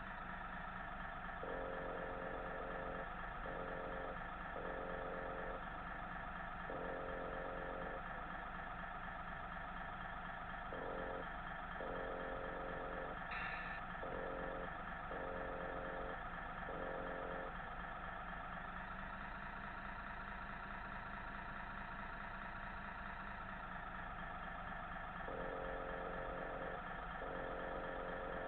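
Simulated diesel engine sound from a remote-controlled model Scania truck's onboard sound module, idling steadily, with a lower tone cutting in and out in short stretches.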